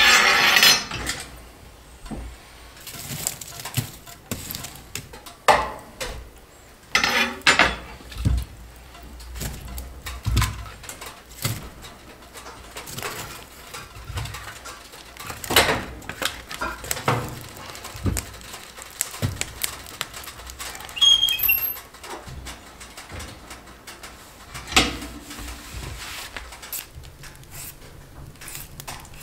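Kitchen work sounds: dishes, pots and utensils clinking and knocking at irregular intervals, with scattered handling noises between them.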